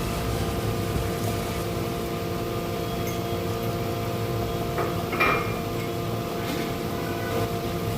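A small electric motor humming steadily with several held tones, and a sharp clink or knock about five seconds in.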